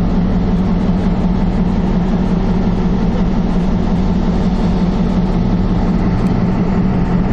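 Diesel switcher locomotive's engine running steadily up close, an even low drone.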